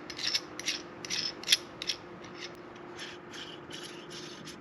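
A nut being threaded down a steel bolt: a run of small metallic clicks and scrapes, sharper in the first two seconds and fainter and quicker later on.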